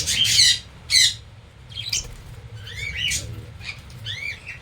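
Caged parrots squawking and chirping: loud harsh squawks at the start and again about a second in, then a string of short, shrill rising-and-falling chirps.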